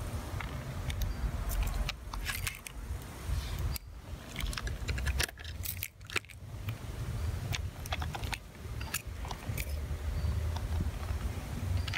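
Uneven low rumble of wind buffeting the microphone, with scattered clicks and scrapes from handling the test probes and moving over loose track ballast.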